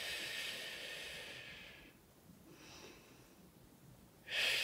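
A woman hissing out through her mouth with her tongue held close to the palate; the hiss fades out about two seconds in. A quieter breath in through the nose follows, and a second hiss starts near the end. This is a face-yoga breathing exercise, meant to activate the cheek muscles (zygomaticus major).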